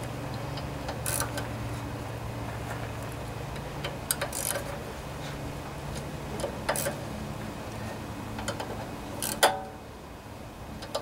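Socket wrench ratchet clicking in short spells, with a few sharp metal clicks, as it cinches down a carburetor's mounting bolts; the loudest click comes near the end. A steady low hum runs underneath.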